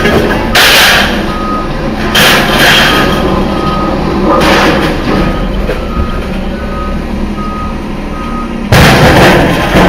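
A vehicle's reversing alarm sounds a row of short, even beeps at one pitch, under two a second. Loud bursts of noise break over it several times, the loudest about nine seconds in.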